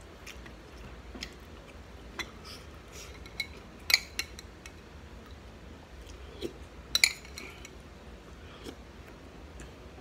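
Metal spoon clinking and scraping against a bowl: a scatter of light clicks, with two sharper clinks about four and seven seconds in.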